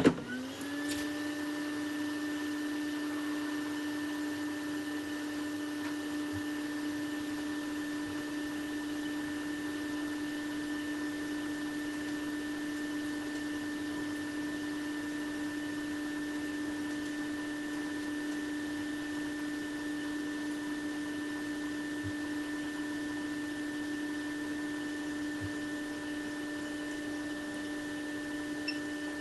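Small electric fan motor starting with a click, its pitch rising over the first second as it spins up, then running at a steady whine.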